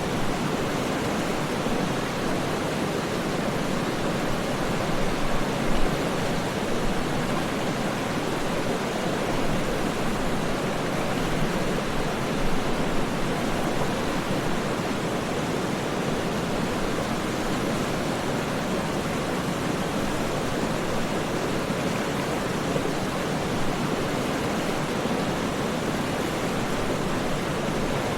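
Waterfall: a steady, deep, even rush of falling water with no breaks or changes.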